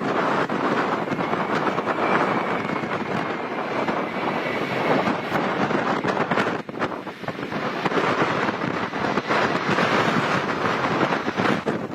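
Strong wind buffeting the microphone, mixed with the steady rush of a jet airliner's engines. A faint high engine whine sounds over it in the first few seconds.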